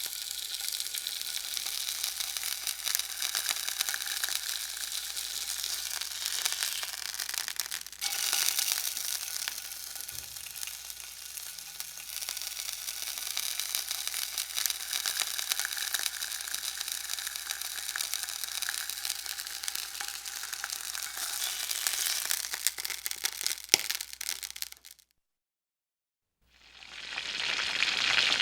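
Food sizzling in a hot frying pan: a dense, steady crackling hiss. It cuts out completely for about a second and a half near the end, then fades back in louder.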